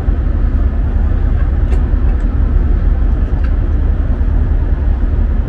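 Steady low machinery rumble aboard a ship, with a few faint light clicks as a clear plastic light-fitting cover is handled and pressed into place.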